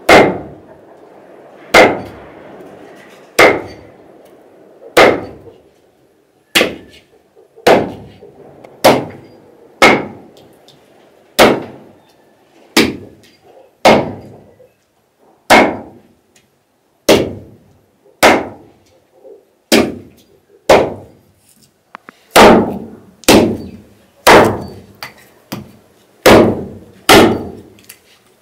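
Hatchet chopping a raw lamb leg into pieces through the bone on a wooden chopping board: sharp, hard chops about one every one and a half seconds, quickening to about one a second near the end.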